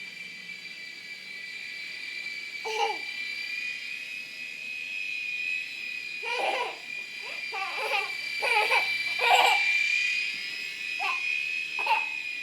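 Small electric motor of a toy helicopter running indoors with a steady high whine that wavers slightly. A young child laughs and babbles over it several times, most in the middle of the stretch.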